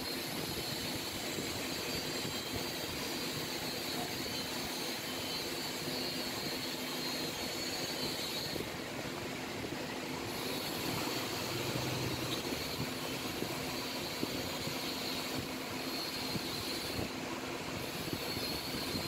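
Steady droning background noise with a faint low hum and a high hiss that drops out briefly twice.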